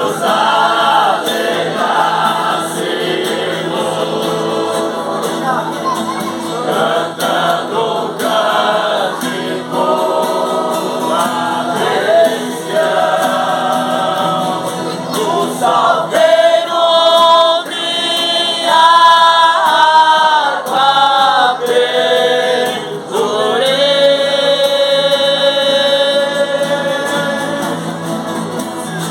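Gospel-style singing with musical accompaniment, the voices carrying a melody with several long held notes in the second half.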